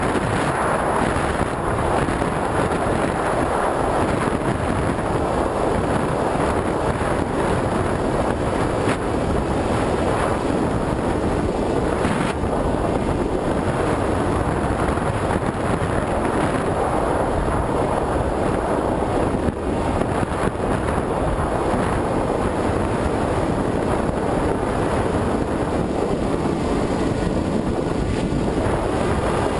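Steady loud rush of wind over the microphone of a GoPro camera carried on an FPV Raptor radio-controlled plane in flight, with no break or change in level.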